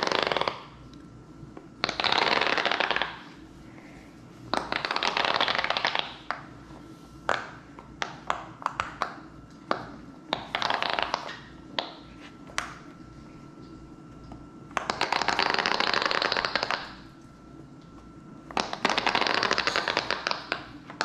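Giant silicone pop-it fidget toy having its bubbles popped: about six runs of rapid crackling pops, each a second or two long, with single pops in between.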